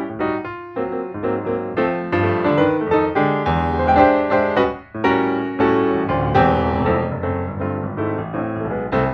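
Background piano music: a fast run of played notes that keeps going steadily.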